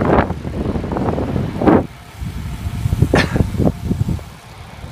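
Wind rumbling on the microphone of a camera carried on a moving road bike, with road noise and a few louder rushing gusts.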